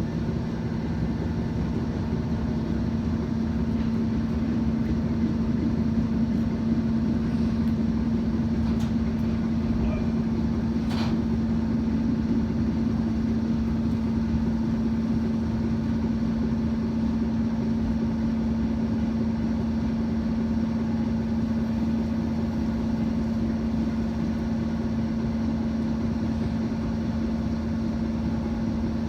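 Train running slowly under a 25 km/h speed restriction: a steady hum with a constant low tone over even running noise, and a brief click about eleven seconds in.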